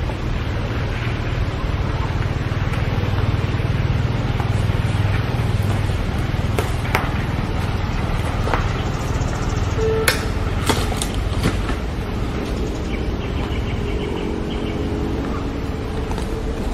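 Steady outdoor background noise with a low rumble, broken by a few sharp clicks around the middle.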